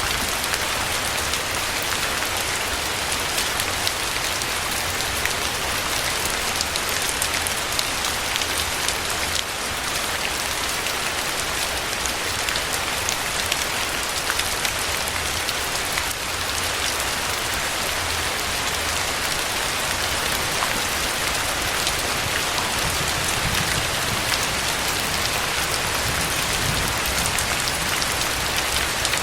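Steady rain falling, an even hiss with fine scattered patter of individual drops.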